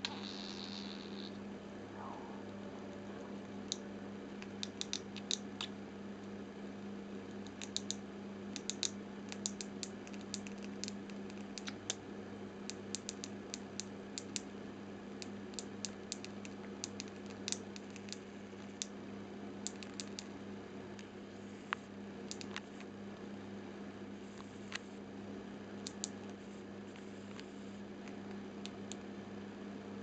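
Budgerigar grinding its beak: runs of small, dry, irregular clicks coming in short bouts, the sound of a relaxed, drowsy budgie, over a low steady hum.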